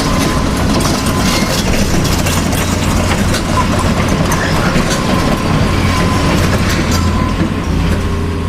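Handmade RC model truck running: steady whirring of its small electric motor and gearbox, with a low hum and a continuous clatter of small clicks and rattles.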